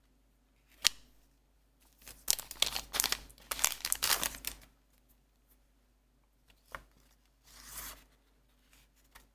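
Booster pack wrapper crinkling as it is handled. A sharp click comes about a second in, then a dense crackle from about two to four and a half seconds, and a shorter rustle near the end.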